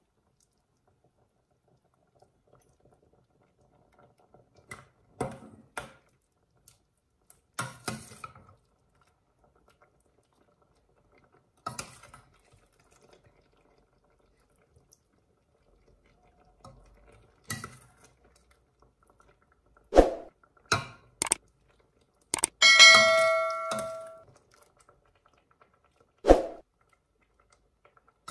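A metal ladle scooping curry out of a stainless steel pot, now and then knocking and scraping against the pot in short clinks a few seconds apart. One strike about three-quarters of the way through rings out for over a second.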